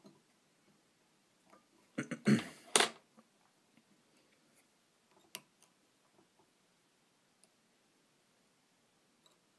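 Small fly-tying scissors trimming the excess soft hackle at the vise, with handling of the fly. A brief burst of rustling and sharp clicks about two seconds in, then a single sharp click about halfway through and a few faint ticks.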